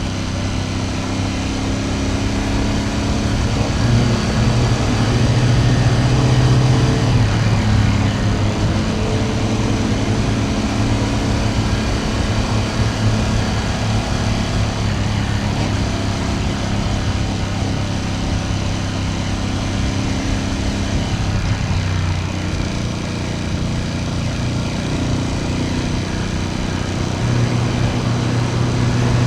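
Ducati Panigale V2S's V-twin engine running while riding along. Its pitch rises a few seconds in, eases off a little past the middle, and climbs again near the end.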